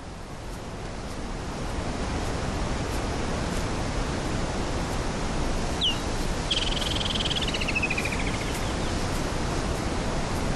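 Steady hiss-like outdoor bush ambience that swells in over the first couple of seconds. About six seconds in, a bird gives a short falling whistle, then a warbling trill that slides downward.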